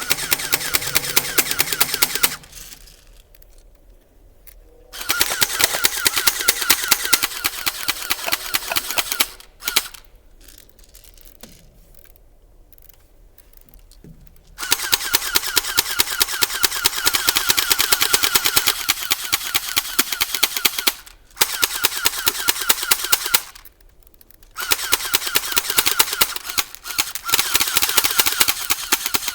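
Airsoft guns firing on full auto: long bursts of rapid, evenly spaced shots, five bursts with short pauses between them.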